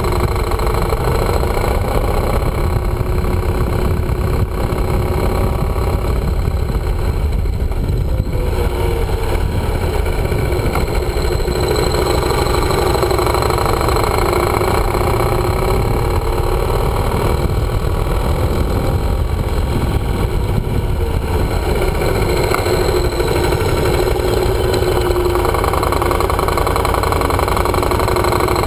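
Yamaha motorcycle engine running while riding, heard from a bike-mounted camera, its pitch drifting gently up and down as the rider works through the bends, over a steady low rumble of wind and road noise.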